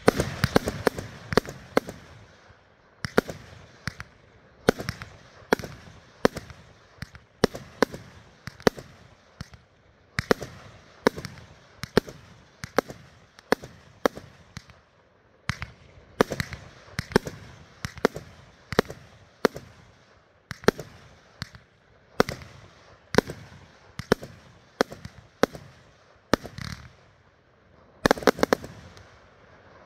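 A 36-shot Dominator Pro vertical mixed-effects firework cake firing shot after shot: a long string of sharp bangs, roughly one or two a second, with a dense cluster of bangs about two seconds before the end.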